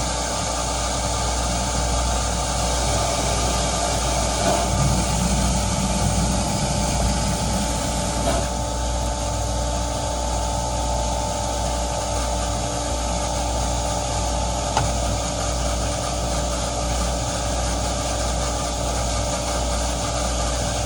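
A steady mechanical hum of a running motor or engine, with a steady whine over it that stops with a click about 15 seconds in.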